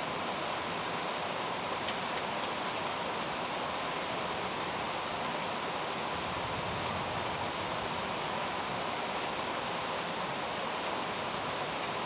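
Steady rain falling on dense leafy vegetation, an even unbroken hiss of water.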